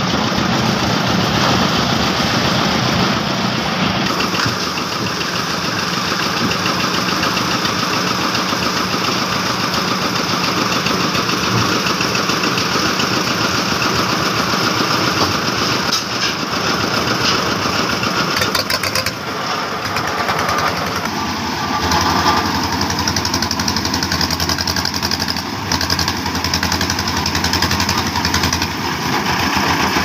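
Engine-driven concrete mixer and bucket-hoist machinery running steadily. About 21 seconds in, the engine sound changes to a stronger, deeper hum.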